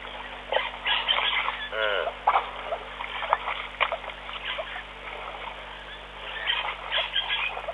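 Birds calling in short chirps and a few falling calls, over wet splashing and squelching as an elephant calf wallows in the mud.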